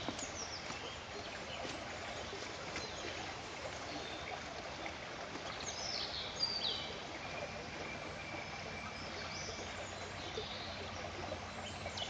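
Small woodland birds singing and calling in short high phrases, several times, over the steady sound of a shallow brook.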